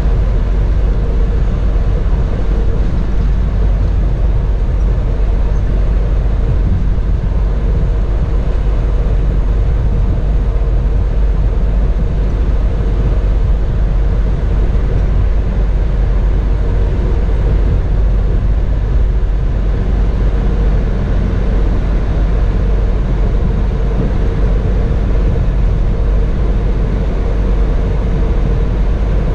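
Steady low rumble of a 2018 Freightliner Cascadia semi truck cruising at highway speed, engine and tyre noise heard from inside the cab, with a faint steady hum.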